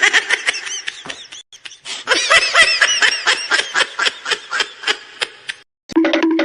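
A high-pitched snickering, giggling laugh in quick bursts of several a second, with a short break about a second and a half in. It stops about five and a half seconds in.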